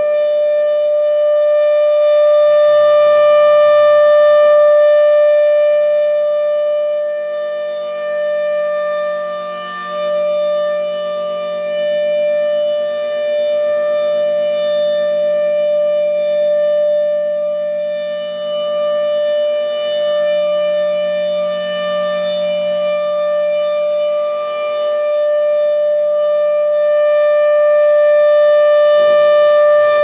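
Federal Thunderbolt 1000 rotating horn siren sounding its steady Alert signal: one held tone that does not rise or fall in pitch. The tone swells and fades in loudness as the horn turns toward and away.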